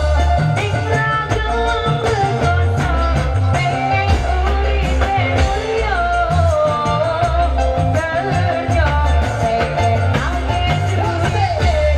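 Kecimol band music: shoulder-slung marching drums beating a steady rhythm under a singer and a sliding melody line.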